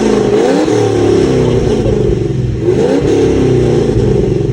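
Holden VF Commodore SS Redline's 6.2-litre V8 revved through its exhaust, the pitch sweeping up twice, near the start and again about two and a half seconds in, between stretches of steady high running.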